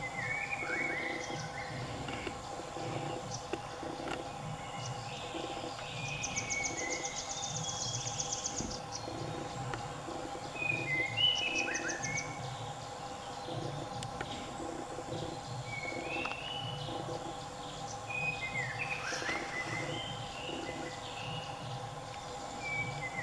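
Birds calling: short chirping calls every few seconds, and a rapid high trill twice near the middle, over a steady hum and a soft low pulsing beat.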